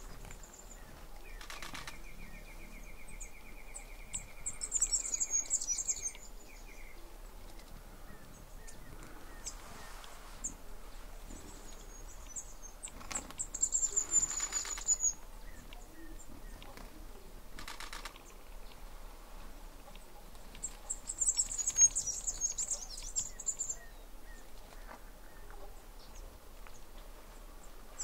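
Tawny antpitta bathing in a shallow puddle, fluttering its wings in the water in three main bouts of splashing. A high, even trill sounds during the first few seconds.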